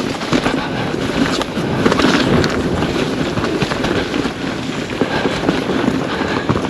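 Pivot Firebird 29 mountain bike riding down a dirt trail: steady tyre rumble over dirt and rock with many small knocks and rattles from the bike.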